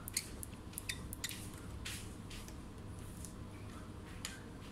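Small sharp clicks and light scrapes of a screwdriver and small metal hinge parts being handled at an opened laptop's hinge bracket, several in the first two seconds and one more near the end, over a faint steady hum.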